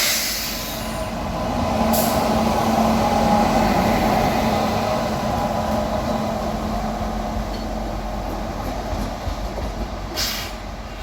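Indian Railways WAP-7 electric locomotive running light past, its wheels on the rails making a steady rolling roar that swells about three to four seconds in and then slowly fades. There are a few sharp clatters near the end.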